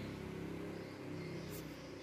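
A low motor hum that slowly fades, with a few faint clicks near the end.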